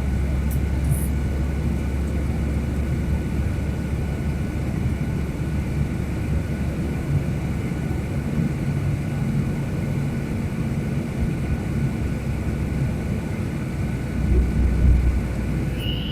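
Steady cabin noise of an airliner descending: continuous engine and airflow noise with a strong low rumble and a faint steady tone, the rumble swelling briefly near the end.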